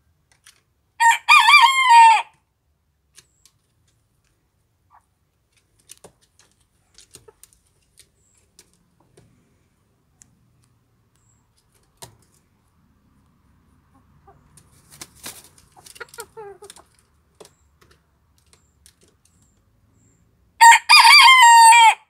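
Antwerp bearded bantam (Barbu d'Anvers) rooster crowing: two short crows, one about a second in and one near the end, each just over a second long. In between there are a few quieter calls and faint scattered clicks.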